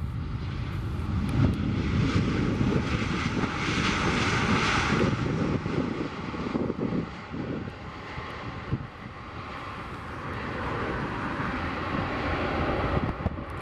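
Jet engines of a Boeing 737-800 running loud as the airliner rolls down the runway after landing: a steady rushing jet noise that swells strongly a couple of seconds in, eases off a little past the middle, then builds again near the end.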